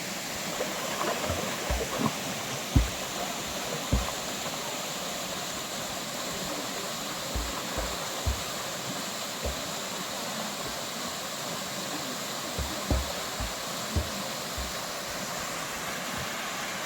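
Waterfall rushing steadily, with a scattered handful of short low thumps.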